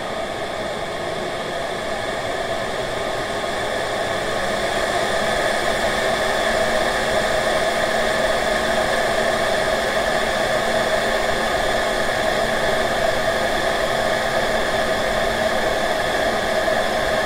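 Steady rushing air from a workbench blower, growing a little louder from about four seconds in.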